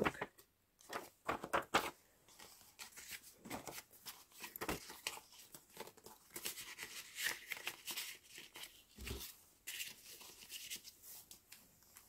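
Paper rustling and sliding as stiff journal pages and loose paper cards are handled, with a few light taps and clicks in the first two seconds.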